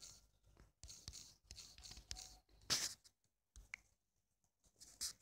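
Faint, short scratchy taps and rubs of a fingertip typing on a phone touchscreen keyboard, several strokes at uneven spacing, the loudest a little under three seconds in.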